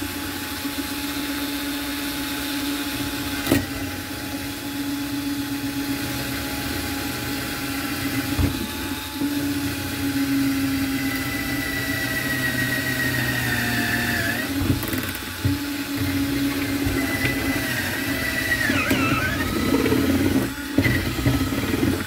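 Ryobi 12-volt cordless drill running steadily as its bit bores through the plastic top trim of a chest freezer. The motor's whine sags in pitch as the bit loads up, most clearly near the end, where it meets resistance from the freezer's metal outer wall. It then stops.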